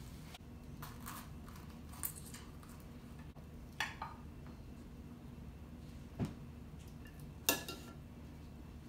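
Knife and fork clinking and scraping against a glass baking dish and a ceramic plate as a roast chicken is carved: a handful of separate clinks spaced a second or more apart, over a low steady hum.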